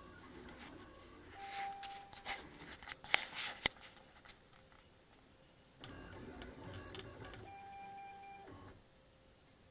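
Stepper motors of a MostlyPrintedCNC pen plotter whining in short runs as the gantry moves the pen, with a cluster of sharp clicks and knocks about three seconds in. The motors then run steadily for about three seconds and stop shortly before the end.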